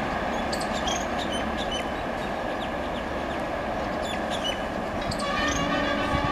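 Steady rumble of the receding 12002 Bhopal Shatabdi express, hauled by a WAP-5 electric locomotive, mixed with heavy rain. Short bird chirps come through the middle, and the locomotive's horn sounds again about five seconds in.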